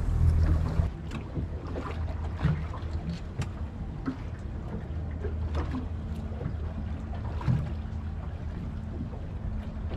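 Boat sitting on the water: a steady low hum with light wind and water noise, broken by scattered faint clicks and knocks.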